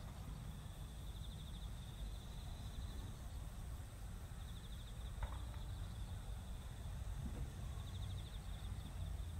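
Rural outdoor ambience: a steady low rumble, with a high pulsing trill that comes and goes several times and a single faint click about five seconds in.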